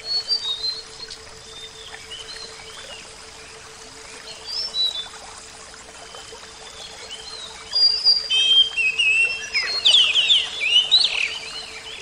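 Songbirds singing in quick chirping phrases over a steady rush of flowing water, the birdsong busiest and loudest over the last four seconds.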